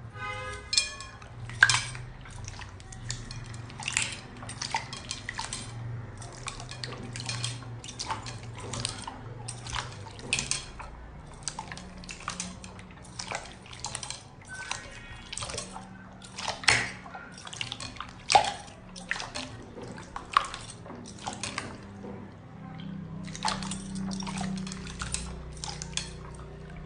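Slime being squeezed and poked: an irregular run of sharp, wet pops and clicks, about two or three a second.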